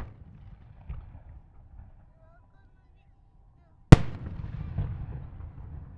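Aerial firework shells bursting: a sharp bang at the start, a fainter thump about a second in, then a very loud bang about four seconds in followed by a long rolling echo.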